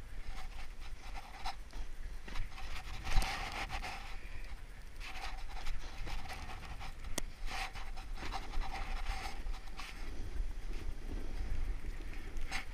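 A person breathing hard, a breath about every two seconds, over the steady scraping noise of moving across snow and a low rumble on the body-worn microphone.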